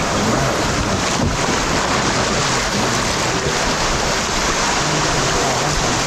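Steady rush of fast, shallow river water running over rapids around a kayak, mixed with wind buffeting the microphone.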